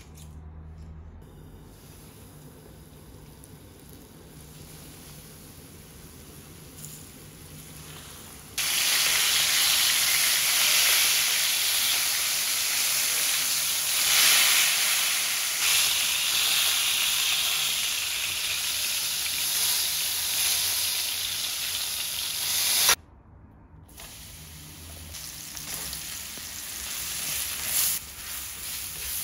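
Floured chicken breast frying in shallow bubbling oil in a pan: a loud, steady sizzle that starts suddenly about a third of the way in and cuts off abruptly about three-quarters through. Before it comes a quieter stretch; after it, sliced mushrooms sizzle in the pan, building toward the end.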